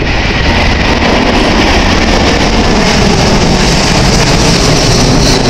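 Boeing 747-400's four Rolls-Royce RB211 turbofans at takeoff thrust during the initial climb, a loud, steady jet noise close overhead. A high whine grows stronger near the end.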